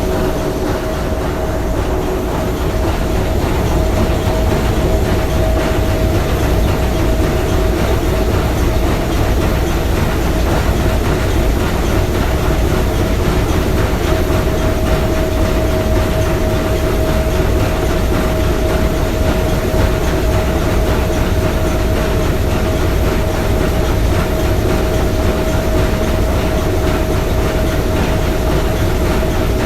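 Three-cylinder triple-expansion marine steam engine running steadily, a continuous mechanical clatter and rumble with a steady high hum over it.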